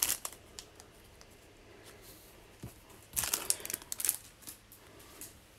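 Plastic trading-card pack wrapper crinkling as it is handled: a short crinkle at the start, then a brief flurry about three seconds in.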